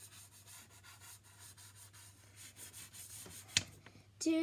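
Soft pastel stick scrubbing on paper in quick repeated strokes, about five a second. One sharp tap comes near the end, then a child starts singing a held note.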